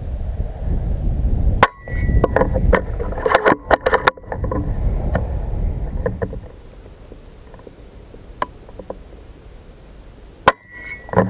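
Wind rumbling on the microphone of a scope-mounted action camera. About two seconds in, a run of sharp clicks and knocks from an air rifle being worked and fired. Quieter later, with a few faint clicks.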